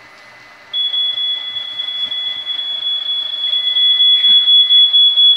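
Smoke alarm sounding a steady high-pitched tone that starts about a second in, its loudness pulsing rapidly toward the end. It is set off by the 500-degree oven.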